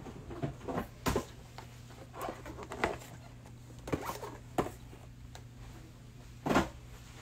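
Cardboard hanger boxes being handled and straightened on a stack: scattered light knocks and rustles, the loudest about a second in and near the end, over a low steady hum.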